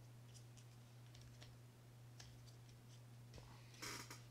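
Near silence with faint small clicks of a reel side plate being handled, then a brief scraping rustle near the end as the small metal roller clutch sleeve of a Shimano Bantam Curado CU-200 is pushed out of it. A low steady hum runs underneath.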